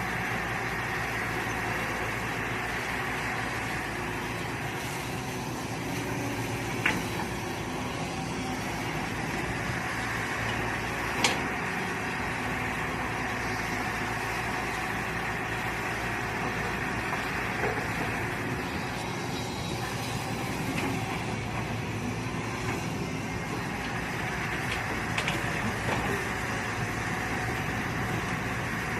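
Mini excavator's diesel engine running steadily while digging, with two sharp knocks, about seven and eleven seconds in.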